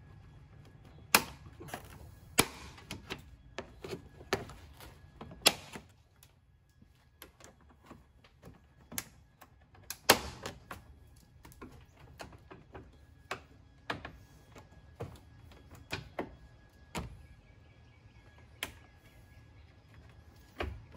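Sharp plastic clicks and snaps of a trim tool prying out the plastic push-pin clips along the top of a Jeep Wrangler JK grille. The clips are brittle and break as they come out. The loudest snaps come in the first six seconds and again about ten seconds in, with lighter ticks the rest of the time.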